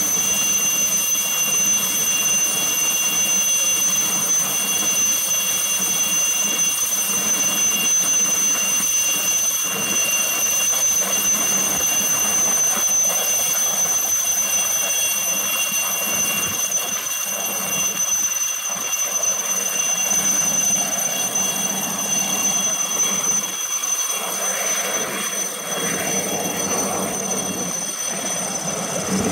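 Helicopter in flight: a steady high whine over a continuous rushing engine and rotor noise, with the rush growing louder near the end.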